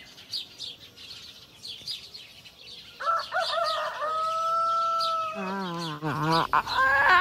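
Small birds chirping, then a rooster crows about three seconds in with one long held note.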